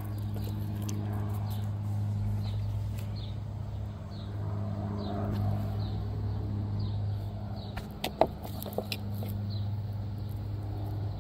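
A steady low mechanical hum, with faint short high chirps recurring and a couple of sharp clicks about eight seconds in.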